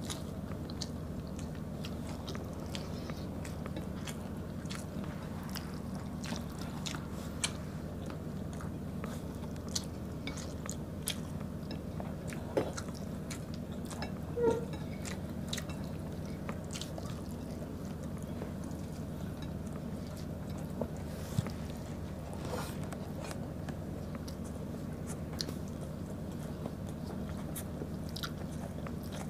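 Close-up eating sounds of people chewing a beef stew with rice: wet chewing, lip smacks and small mouth clicks scattered through, over a steady low hum.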